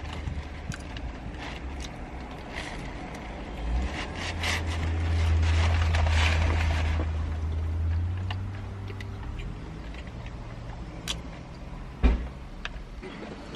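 A motor vehicle's low engine hum that swells louder for a few seconds in the middle, with a couple of sharp clicks near the end.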